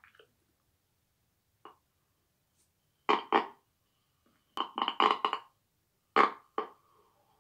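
A woman's stifled laughter behind her hand, coming in short bursts: a pair, then a run of several quick ones, then two more near the end.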